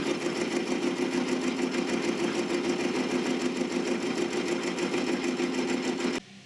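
Small metalworking lathe running steadily with a fast, even mechanical whir. It cuts off suddenly about six seconds in.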